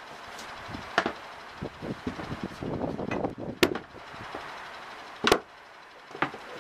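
A piece of wood and a food dish are lifted out of a plastic breeding case of soil: scraping and rustling through the substrate, with several sharp knocks and clatters against the plastic. The loudest come about a second in, at about three and a half seconds and just past five seconds.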